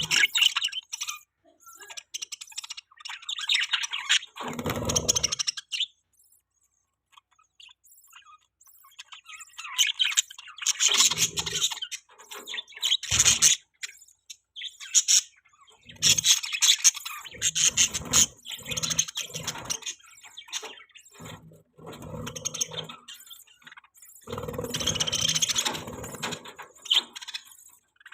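Budgerigars chirping and chattering in bursts, with a near-silent gap about six to ten seconds in.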